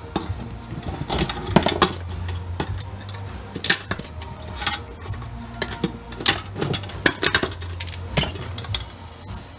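Small metal parts and hand tools clinking and knocking irregularly as a machine is taken apart for scrap, over a steady low hum.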